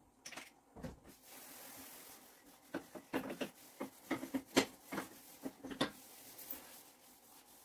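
Kitchen sponge scrubbing the enamel top of a gas stove in short rubbing strokes, most of them in a quick run from about three to six seconds in.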